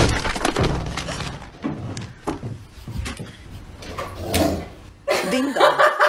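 A door banging and knocking in a small room: one loud bang at the start, then irregular knocks and bumps. Near the end a louder voice-like sound comes in.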